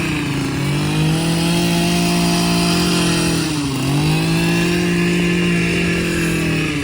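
A gasoline engine running steadily, its speed dipping briefly and recovering about every three seconds as it takes load.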